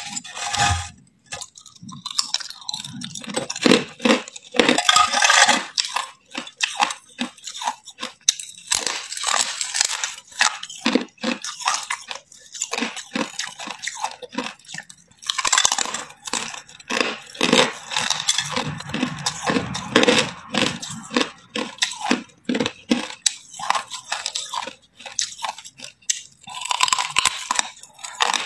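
Hard ice being bitten and chewed: dense crackling crunches as the ice breaks between the teeth, in bouts with short pauses between bites.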